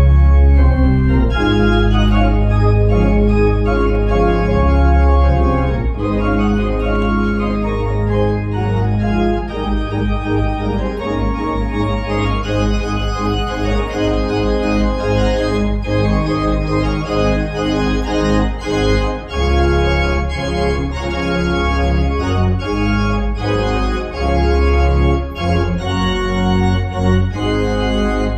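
Church organ playing, held chords over a deep pedal bass, starting suddenly at full volume.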